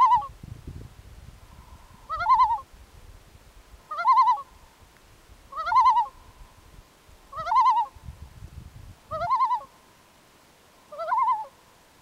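A loon calling about seven times in a steady series. Each call is a short note that sweeps up and breaks into a quavering warble, coming every second and a half to two seconds.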